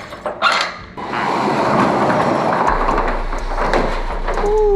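Steel roll-up storage unit door being unlatched and rolled open: a few clicks of the latch, then from about a second in a continuous metal rattle as the door rolls up. Near the end a short squeal falls in pitch.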